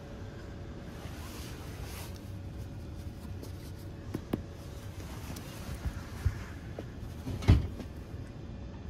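A first-class train seat being handled as it is reclined: a few light knocks, then one loud clunk about seven and a half seconds in. Under it, the steady low rumble and hum of the moving train coach.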